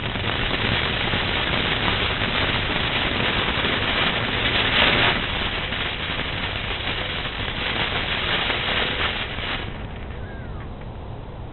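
Consumer firework burning with a dense, crackling hiss that swells about halfway through and cuts off shortly before the end.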